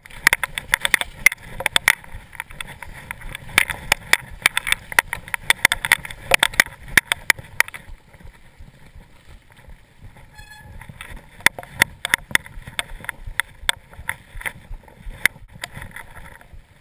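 Mountain bike clattering and rattling as it rides over a rough, muddy trail: dense knocks and jolts for the first eight seconds or so, then sparser knocks on a smoother stretch.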